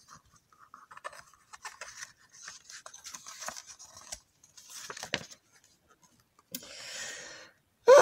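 Pages of a hardcover picture book being handled and turned: soft paper rustles and small clicks, with a longer swish near the end.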